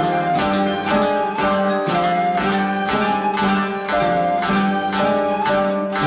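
Several koto, Japanese thirteen-string zithers, played together in a steady run of plucked notes that ring and fade.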